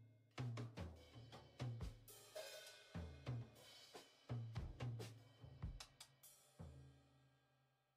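Background music with a drum-kit beat, regular hits with a bass line under them. The last hit is about six and a half seconds in, and it then rings away to nothing.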